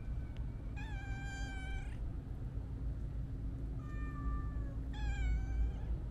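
Siamese-mix cat meowing three times: one long drawn-out meow, then two shorter meows in quick succession near the end. A steady low rumble runs underneath.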